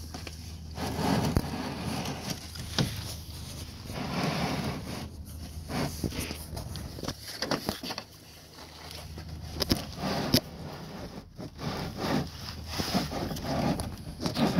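Irregular scraping and rubbing with a few sharp clicks and knocks: hands rummaging through the oil drain pan, searching for the drain plug that has dropped into it.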